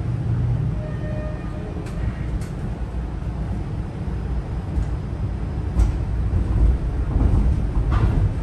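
Toronto streetcar (Flexity Outlook) heard from inside the passenger cabin: a steady low rumble. A few sharp clicks and knocks come through, the loudest near the end, and a brief faint whine comes about a second in.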